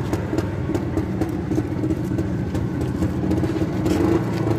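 Single-cylinder motorcycle engine idling steadily with an even, fast firing beat.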